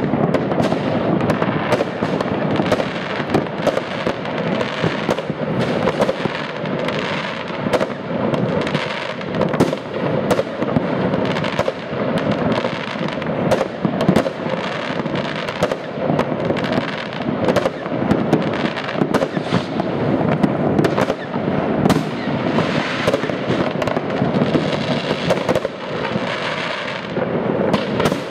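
Fireworks and firecrackers going off in great numbers at once: a continuous din of overlapping bangs, pops and crackling with no pause.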